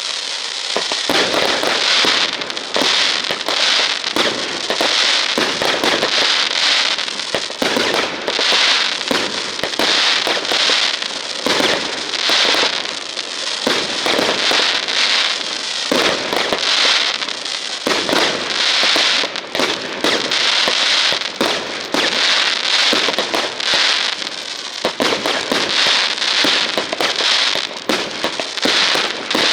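Fireworks crackling: a dense, continuous run of sharp pops that swells and fades in waves about once a second.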